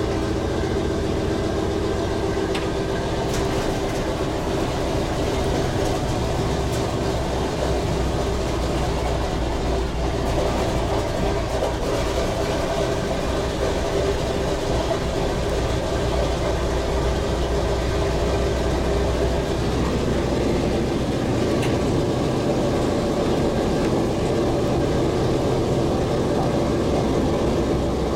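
B-17 bomber's Wright R-1820 Cyclone nine-cylinder radial engines running steadily at idle, heard from inside the fuselage. The note changes about twenty seconds in.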